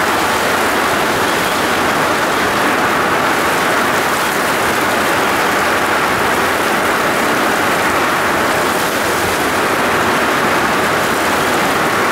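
Heavy rain pouring down in a steady, loud downpour, drumming on the roof and ground.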